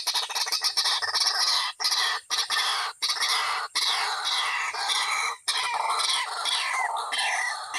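White-breasted waterhen (ruak-ruak) calling: a fast, continuous series of harsh, repeated squawking notes.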